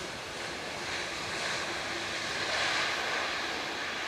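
Airbus A330-300 airliner with General Electric CF6 engines rolling down the runway after landing, a steady jet rush that swells to a peak about two and a half seconds in, then eases slightly.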